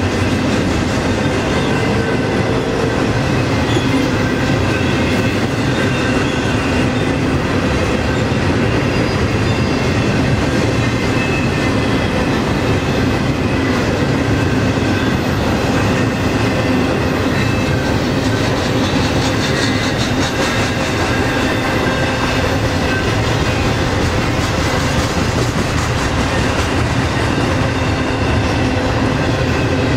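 Double-stack container well cars rolling steadily past, their steel wheels running on the rails with a constant loud rumble and faint high squealing tones.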